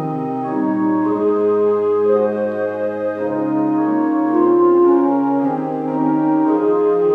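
Organ playing a slow hymn arrangement in smoothly joined, sustained chords that change every second or so over a moving bass line.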